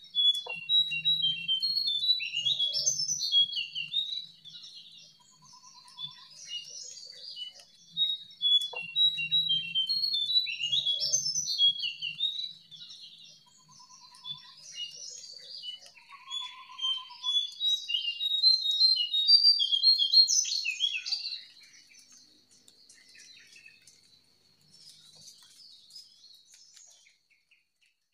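Wild jongkangan birds singing in three long bursts of rapid, jumping high chirps, the last ending about three-quarters of the way in, then fainter scattered notes. A steady high tone runs underneath.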